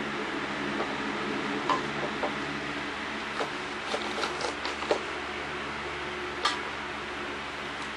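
Sharp clicks and light clatter of LEGO plastic bricks as a hand-built LEGO garbage truck is handled, a string of them in the middle and one more later, over a steady background hum.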